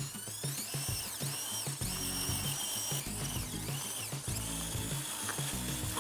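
Background music over the high whine of a radio-controlled Bruder Deutz toy tractor's electric drive motor, rising and falling again and again as its wheels spin and dig into gravel: the tractor is stuck.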